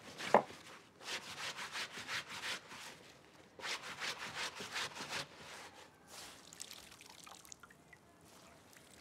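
Wet cloth being scrubbed by hand against a wooden board over an earthenware washing bowl, in two runs of quick, even rubbing strokes. A single sharp knock comes just after the start. The last few seconds hold only faint handling of wet cloth.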